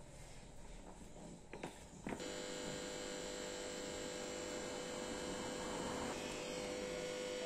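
A couple of faint clicks, then about two seconds in a steady machine hum switches on, with one strong even tone and a fainter buzz over it.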